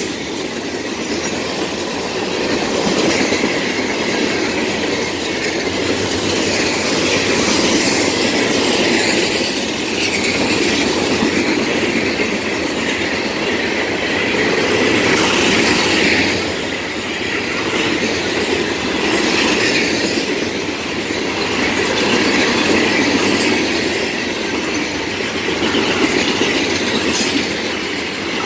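Freight cars of a Florida East Coast Railway rock train rolling past close by: a loud, continuous rumble and clatter of steel wheels on the rails that swells and eases every few seconds.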